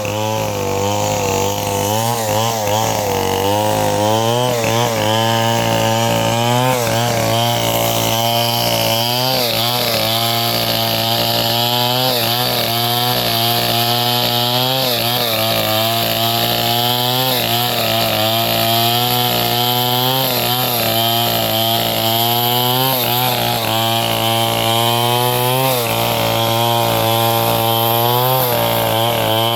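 A sawmill's engine running steadily, with its pitch wavering up and down throughout.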